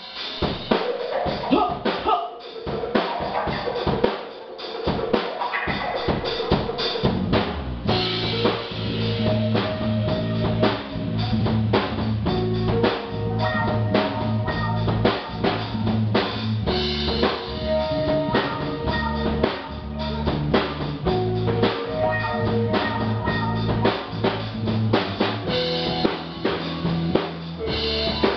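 Live band playing a blues-funk instrumental intro: a Pearl drum kit plays alone at first with cymbals, snare and bass drum, then a bass line and guitar come in about eight seconds in and the full band carries on with a steady groove.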